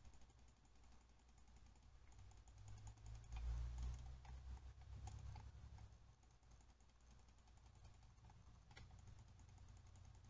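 Faint, scattered clicking from a computer mouse and keyboard over a low hum, with a low thud about three and a half seconds in.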